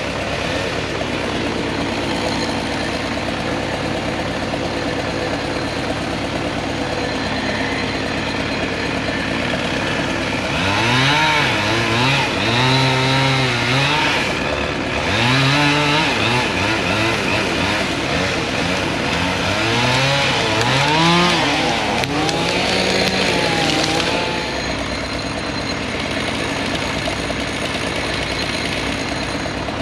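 Chainsaw engine revving up and falling back again and again through the middle of the stretch, over a steady engine drone.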